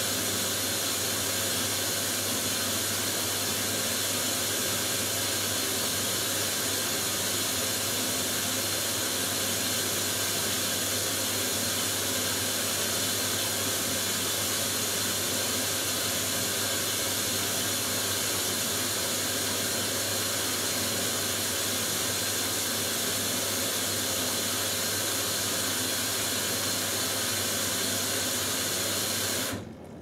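Hoover Dynamic Next washing machine filling with water for its last rinse: a steady hiss of water rushing in through the inlet valve, over a low hum, which cuts off suddenly near the end as the valve closes.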